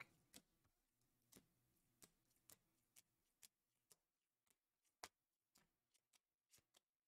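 Faint, sharp clicks of rigid plastic card holders knocking against each other as a stack of sleeved trading cards is flipped through one card at a time, about one or two a second, the clearest about five seconds in.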